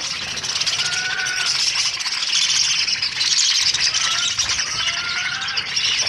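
A flock of budgerigars chattering all together, a dense high warble with short whistles standing out from it, as the hungry birds crowd and jostle over food.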